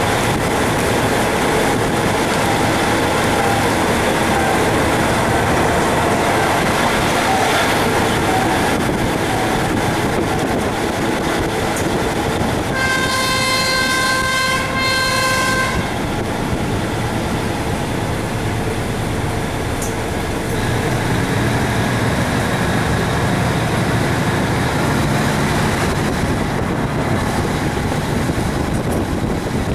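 Train running with a steady rumble and rattle on the track, as heard from on board; about halfway through, the train's horn sounds for about three seconds.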